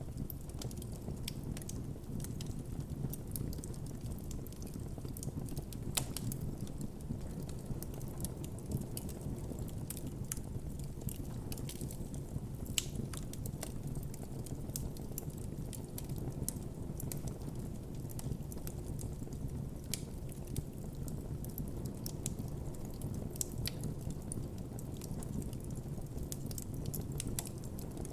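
Wood campfire burning: a steady low rumble of flames with frequent sharp crackles and pops coming at irregular intervals.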